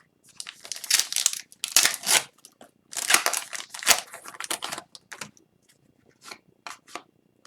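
Foil wrapper of an Upper Deck Extended Series hockey card pack crinkling and tearing as it is opened by hand, in a run of rustling bursts over the first five seconds, then a few short separate crackles.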